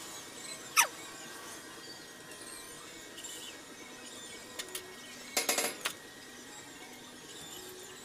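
Hand-tool work on a steel railing post's base fastening: a few clicks, then a quick rattling run of metallic clicks a little past halfway. About a second in, one brief sharp squeal drops steeply in pitch and is the loudest sound; faint chirping runs underneath.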